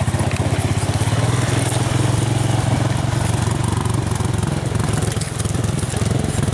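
ATV engine running steadily with a fast, even putter.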